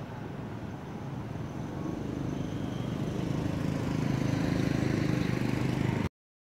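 A motor engine running, growing steadily louder over several seconds, then cut off abruptly about six seconds in.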